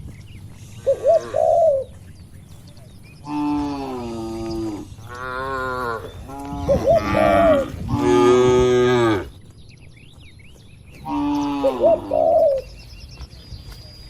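Cattle mooing in several long calls one after another, the last and loudest about eight seconds in. Doves coo in short phrases before and after.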